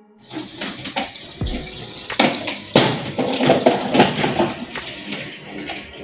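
Metal spoon stirring, scraping and clinking against a ceramic bowl of oatmeal, many short clicks, busiest in the middle, over a steady hiss.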